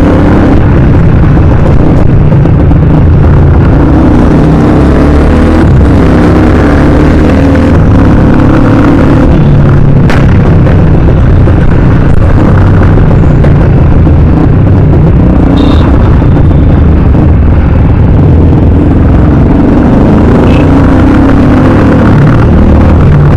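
Motorcycle engines running steadily at riding speed in traffic, loud throughout. Among them is a KTM Duke 390's single-cylinder engine breathing through a loud aftermarket Akrapovic exhaust, which the rider takes for a full system.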